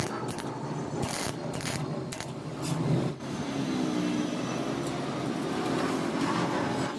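MIG welder arcing in short bursts of crackle as a hub is tacked onto a steel saw blade, then a steady motor hum from about three seconds in.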